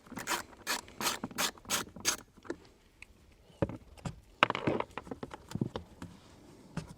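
1/4-inch ratchet with a 5.5 mm socket clicking at about three strokes a second as it backs out a blower motor retaining screw, then a few scattered knocks and clicks from about three seconds in.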